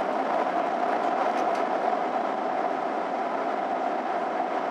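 Steady in-flight cabin noise of an airliner: the even drone of engines and airflow heard from inside the cabin, with a constant midrange hum.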